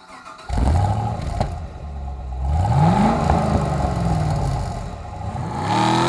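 Car engine sound effect: the engine starts abruptly about half a second in, runs, revs up with a rising pitch between two and three seconds in, winds slowly back down, then revs again near the end.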